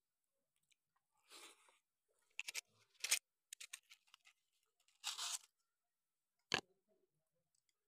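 Eating by hand from steel plates: short crunching and scraping sounds with a scatter of sharp clicks, one more sharp click near the end.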